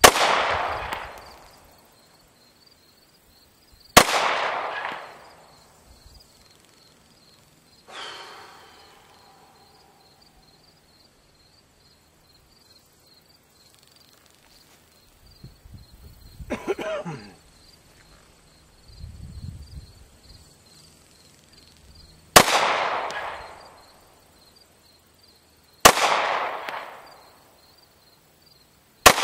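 Single 9mm pistol shots from a Glock 19, fired one at a time several seconds apart with a long pause in the middle. Five loud cracks, each with a long echoing tail. A fainter ringing sound comes about eight seconds in.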